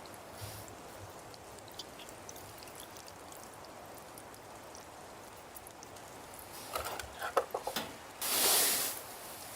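A few light clicks and knocks, then a short splash of liquid lasting under a second near the end, like water being poured, over a low steady hiss.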